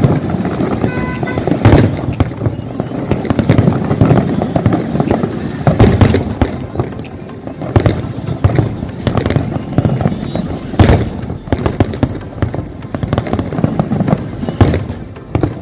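Aerial fireworks going off in a dense, continuous run of bangs and crackling, with the heaviest booms about two seconds in, around six seconds and near eleven seconds.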